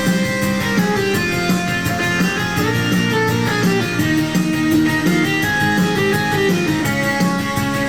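Yamaha Genos 2 arranger keyboard playing a style with strummed guitar, bass and a steady beat.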